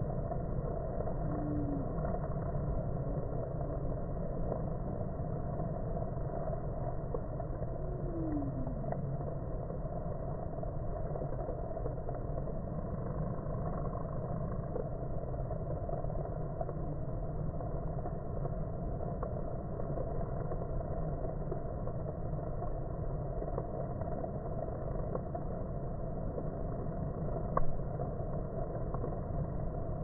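Honeybees buzzing at a hive entrance, slowed down so the massed buzz becomes a low, steady drone. About eight seconds in, one passing bee's hum slides down in pitch. A brief sharp tick comes near the end.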